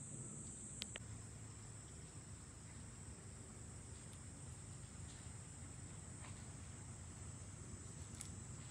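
Insects chirring outdoors in a steady, high-pitched, unbroken drone, with a couple of faint sharp clicks about a second in.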